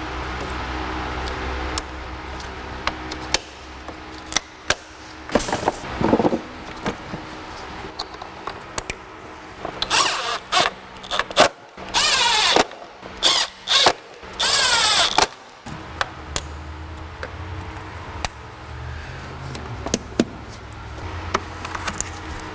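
A power tool runs in a string of short bursts, mostly in the middle, its pitch sliding up and down as it spins up and slows. Sharp clicks and knocks of tools on metal come in between.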